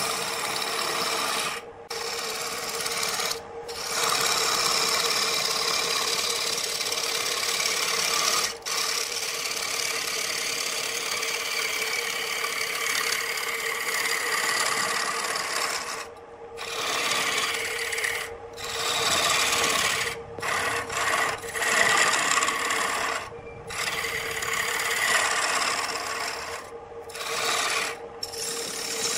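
A turning tool cutting into a large wooden blank spinning on a wood lathe: a continuous scraping hiss of shavings being cut, with a steady hum underneath. The cutting stops for short moments several times, more often in the second half, as the tool comes off the wood.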